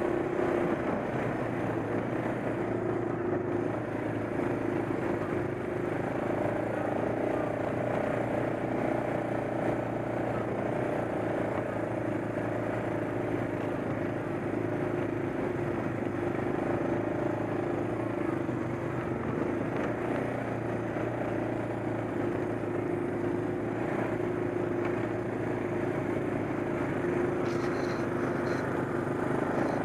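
ATV engine running steadily at a nearly constant pitch, heard close up from the quad being ridden, over a rushing haze of wind and tyres on a gravel trail.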